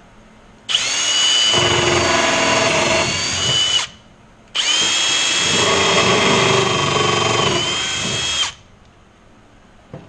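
Kobalt cordless drill running in two bursts of about three to four seconds each, its bit drilling through a seat belt bracket and the aluminum structure behind it to match-drill the rivet holes.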